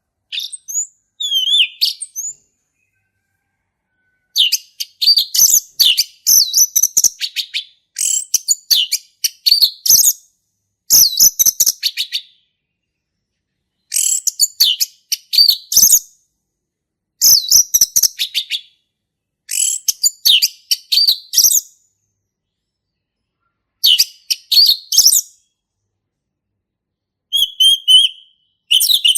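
Male orange-headed thrush singing its full, clear song: about ten phrases of rapid, varied high notes, each a second or two long, separated by short pauses.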